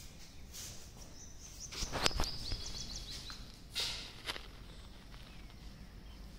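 Footsteps and a few knocks on a hard floor, with a bird chirping a quick run of high notes about two seconds in.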